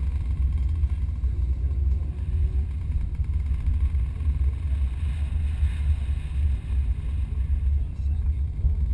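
Nissan 350Z's 3.5-litre VQ35DE V6 running at low revs as the car rolls slowly, a steady low rumble.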